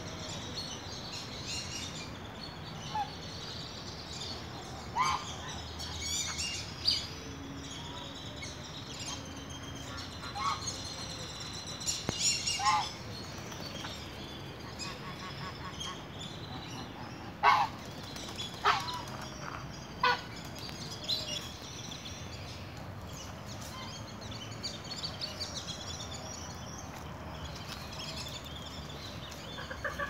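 Domestic geese honking now and then, in single calls and short runs, mostly in the first two-thirds, over a steady background hiss.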